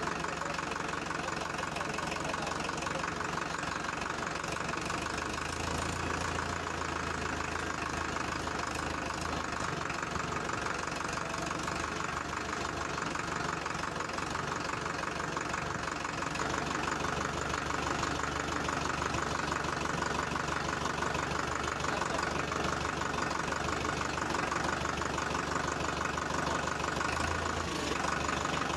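Mini tractor running steadily while pulling a loaded trolley.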